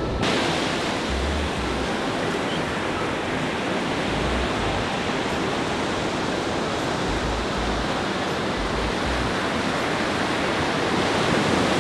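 Steady rush of surf breaking on the beach, with occasional low buffets of wind on the microphone.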